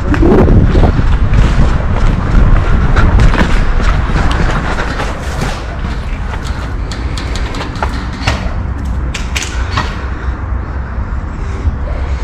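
Dense low rumble of wind and movement on a body-worn camera microphone during an airsoft game. A scatter of sharp clicks and snaps runs through it, with a few stronger ones between about seven and ten seconds in.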